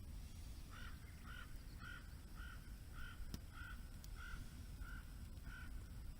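A crow cawing in a fast run of about ten evenly spaced caws. A single sharp click comes in the middle of the run, over a steady low background rumble.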